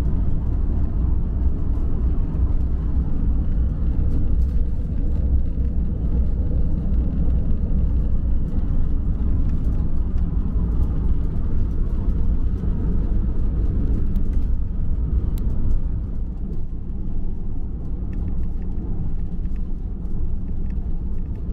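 Motorhome driving on an open road, heard from inside the cab: a steady low rumble of engine and road noise. It eases slightly about sixteen seconds in.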